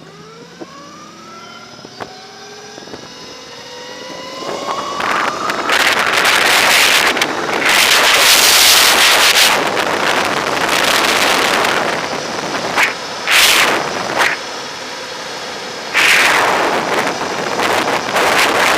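Throne SRPNT electric motorbike pulling away: its motor whine rises in pitch over the first few seconds. Heavy wind buffeting on the microphone then takes over as the bike gets up to speed, easing off briefly and returning near the end.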